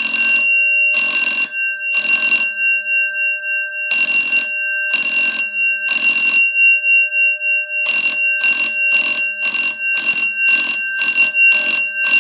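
Edwards 439D-6AWC six-inch fire alarm bell on 18 volts DC, ringing loudly in bursts with the gong still ringing between them. It sounds three half-second bursts a second apart, pauses, and sounds three more, the temporal-three pattern. From about eight seconds in it switches to short bursts about three a second.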